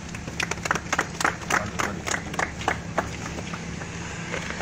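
A small group of people clapping in scattered, irregular claps that die away after about three seconds, over a steady low hum.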